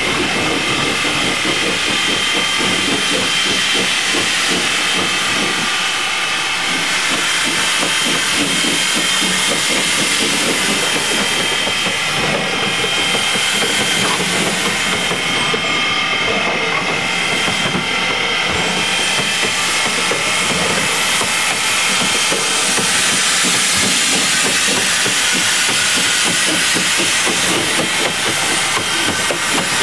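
Steam locomotive venting steam: a loud, steady hiss with faint thin whistling tones in it.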